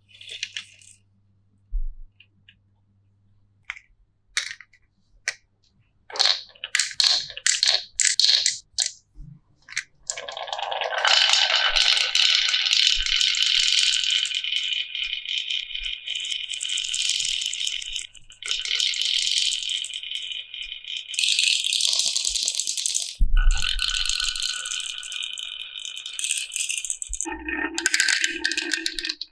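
Marbles clicking and rolling down a marble run: scattered single clicks at first, then a continuous busy clatter from about a third of the way in.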